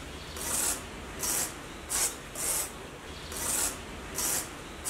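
Repeated rasping, scraping strokes: a hissy scrape roughly every half second to second over a steady rough rustle.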